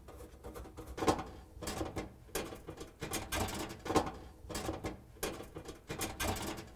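Phillips screwdriver turning out the metal screw that holds an oven broil element's bracket to the oven ceiling: a series of short scraping sounds, one every half second to a second, as the screw is worked loose.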